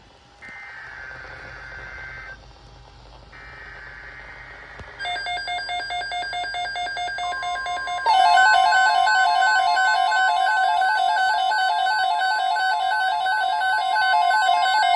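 Emergency Alert System alert tones: two short screechy data bursts of the broadcast alert header, then a loud warbling electronic alarm tone from about five seconds in. A steady pure tone joins it and it grows louder at about eight seconds.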